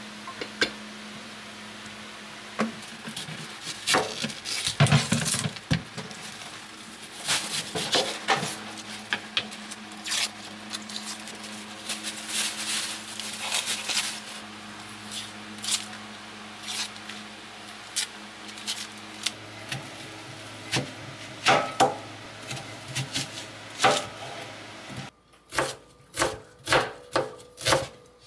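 Food-prep sounds: scattered clinks and knocks of utensils and dishes over a steady low hum. Near the end, after a brief drop-out, a knife starts chopping on a cutting board in a quick, even rhythm.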